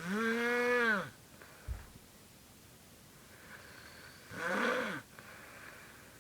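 Two odd snores with a clear pitched, moan-like tone. The first, at the start, lasts about a second and its pitch rises and then falls; the second, shorter and weaker, comes about four seconds later. Soft breathy breathing sounds lie between them.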